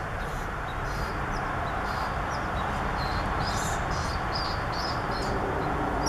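Black phoebes calling: short, high chirps repeated irregularly, about two a second, over a steady low background rumble.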